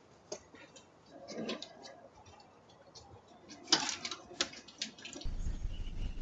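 Scattered light clicks and knocks, one sharper than the rest near the middle, then a steady low rumble of background noise with a faint hum that starts suddenly about five seconds in.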